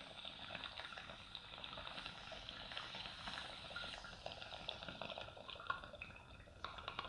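Water bubbling in a glass beaker bong as a long hit is pulled through it: a steady stream of small gurgling pops.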